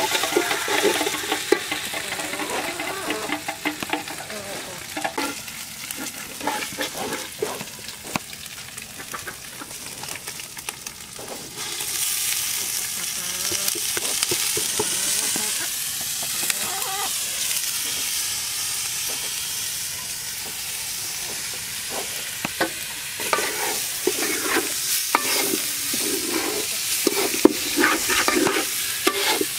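Onions frying in oil in a large metal pot, sizzling, while a metal spoon scrapes round the pot as it is stirred. About twelve seconds in the sizzle grows louder as washed rice is tipped into the hot oil, and after that the rice is stirred and fried with more scraping strokes.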